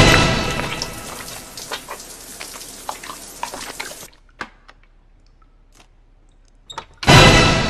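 A sudden loud horror-film stinger hit that rings with a chord and fades over about a second, over a running shower spraying and dripping that cuts off abruptly about four seconds in. A second loud stinger hit strikes near the end.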